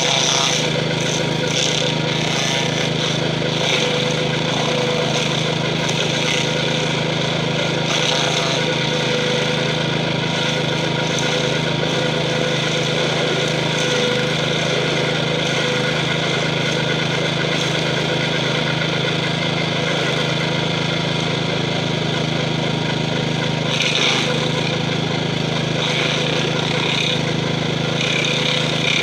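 Gravely 5640 walk-behind tractor's 12 hp Kohler single-cylinder engine running steadily under load, driving a stump-grinder wheel that grinds into a tree stump. The grinding hiss of chips grows heavier near the end.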